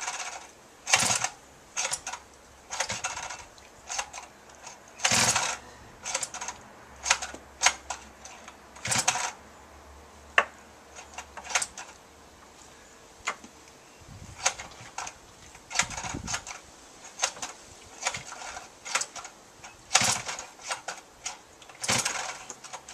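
Recoil starter cord of a 34cc two-stroke multi-tool engine being pulled over and over on a cold start with the choke on: about twenty short pulls, roughly one a second, without the engine catching. The owner found the new cord a bit sticky.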